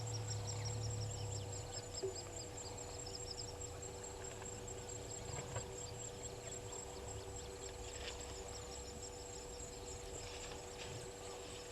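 Outdoor bush soundscape at a waterhole: a steady, high insect trill, with rapid repeated chirping calls over the first few seconds, a low rumble in the first couple of seconds and a few faint clicks.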